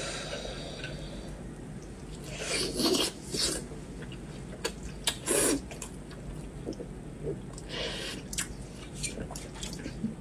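Close-up wet eating sounds from a person eating sauce-soaked braised pork bone: several short slurps and sucks, with small wet clicks in between.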